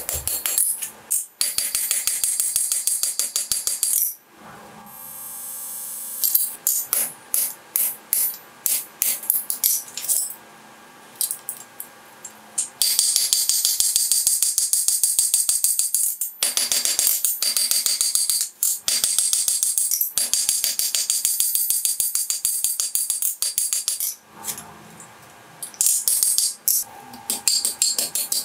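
Hand-forging on an anvil: fast runs of hammer blows on hot steel, each strike ringing metallically, broken by a few brief pauses.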